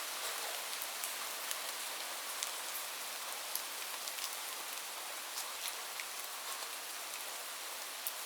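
Steady rain falling, a constant hiss with many individual drops ticking sharply through it.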